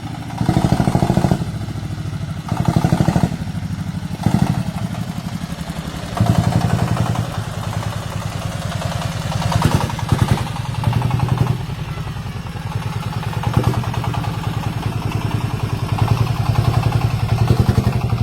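Diesel engine of a homemade farm vehicle running with a fast, even chugging beat, its loudness surging up several times as it is given more throttle.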